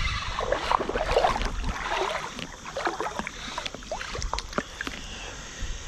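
A small smallmouth bass splashing and thrashing at the water's surface as it is reeled in on a spinning rod, in irregular sloshes and spatters.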